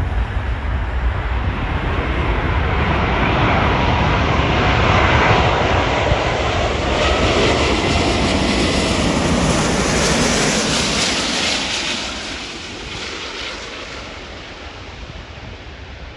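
Airbus A380 four-engine jet airliner passing by on final approach to land: a steady jet rumble and hiss that swells to a peak and then fades away near the end.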